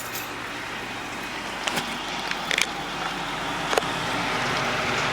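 Food frying in hot oil: a steady sizzle that grows louder, with a few sharp pops and spits.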